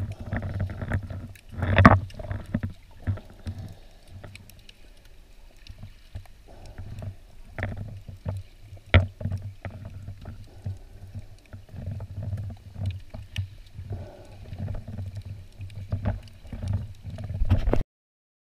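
Water sloshing and moving around an underwater action camera just below the surface: uneven muffled low rumbles with scattered sharp clicks and knocks. It cuts off suddenly near the end.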